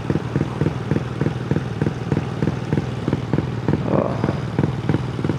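Honda Grom (MSX125SF) single-cylinder 125 cc engine running steadily with a regular exhaust pulse, loud enough that the rider fears it breaks the noise rules.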